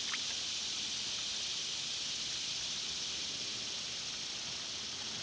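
Steady high-pitched hiss of outdoor background noise, unchanging throughout, with a faint tick just after the start.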